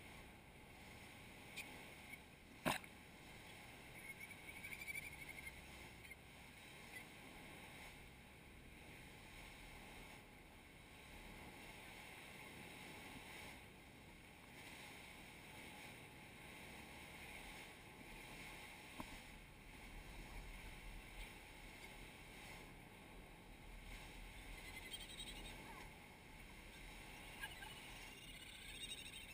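Near silence: a faint, steady wash of surf, with one sharp click about three seconds in.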